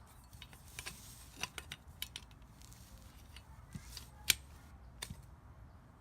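Copper pyramid poles clicking and tapping as they are pushed into the fittings and snap into place: a string of sharp metallic clicks, the loudest a little after four seconds in.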